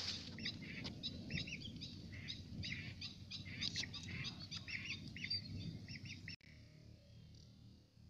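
Whistling ducks calling: a rapid, overlapping run of short, high whistled chirps that cuts off abruptly about six seconds in.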